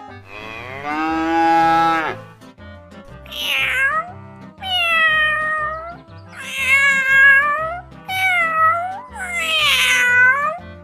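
Domestic cat meowing: a long call in the first two seconds, then five drawn-out meows about a second each. Light background music with a steady beat plays underneath.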